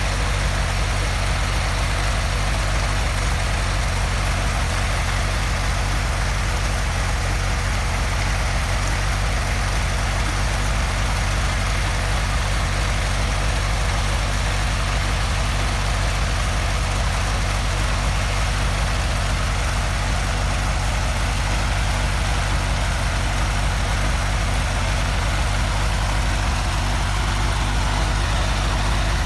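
Engine of a homemade helicopter running steadily at idle, with an even low hum that holds the same speed throughout.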